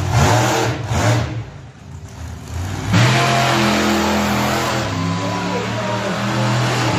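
Monster truck engine revving: two short blasts of throttle about a second apart, then from about three seconds in a loud, sustained run as the truck drives on the dirt, its pitch rising and falling with the throttle.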